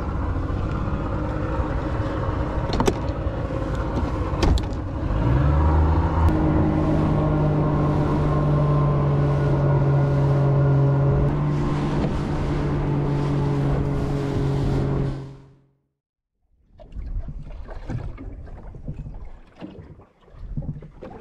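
Two-stroke outboard motor pushing a small boat, with wind and water rush; its revs step up about five seconds in and it holds a steady drone until it cuts off about fifteen seconds in. Wind buffeting and light handling noise follow.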